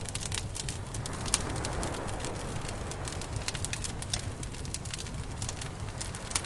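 Campfire crackling: many small sharp pops over a steady low rumble of burning wood, with a few louder snaps.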